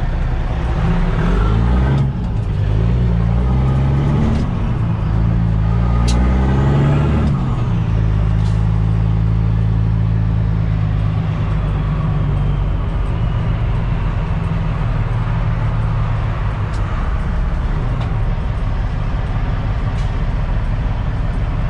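Kenworth T800's Caterpillar C15 diesel, straight-piped, pulling hard as the truck accelerates through the gears. The engine note climbs and drops back with each upshift, three times in the first eight seconds, then settles into steady running.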